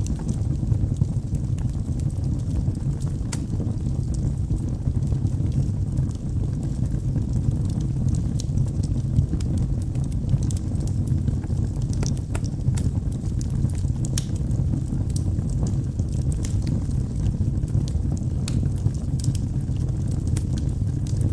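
Wood fire burning in a fireplace: a steady low rumble of flames with many scattered sharp crackles and pops from the burning logs.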